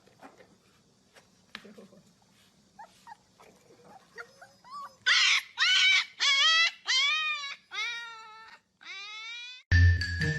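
A dog whining: faint whimpers build into a string of about five loud, high-pitched cries, each rising and then falling in pitch. Music with mallet percussion cuts in near the end.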